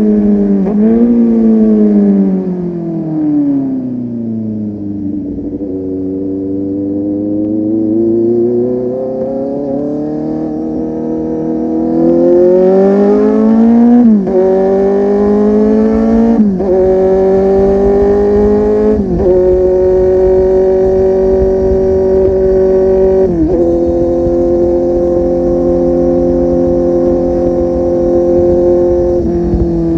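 Kawasaki Z800's inline-four engine through an aftermarket full-system exhaust, ridden on the road. The engine note falls as the bike slows, then climbs under acceleration through four upshifts, each a sudden drop in pitch. It settles into a steady cruise and eases off near the end.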